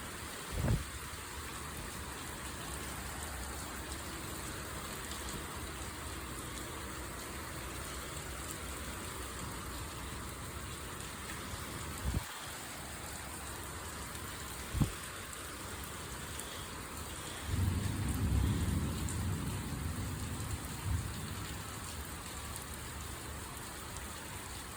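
Steady heavy rain falling, with a low rumble of thunder lasting a few seconds about two-thirds of the way through. A few short sharp knocks stand out over the rain.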